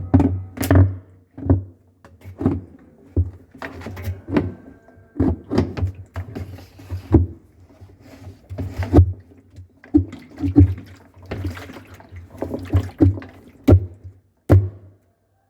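Irregular knocks and thumps, several a second, as objects are handled and struck.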